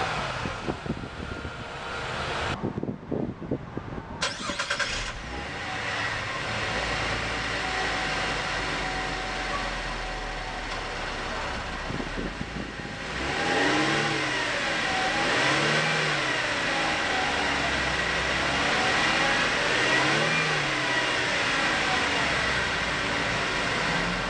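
Exhaust of a 2014 Lexus GX 460's V8 for the first couple of seconds. After a short break, another vehicle's engine idles steadily through its exhaust. From about halfway it is revved several times, each rev rising and falling.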